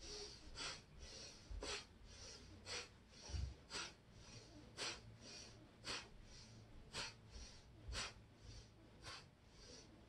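A woman's quick, rhythmic breathing in time with a seated spinal twist, inhaling as she turns to one side and exhaling as she turns to the other. It runs at about one strong breath a second, with weaker breaths between.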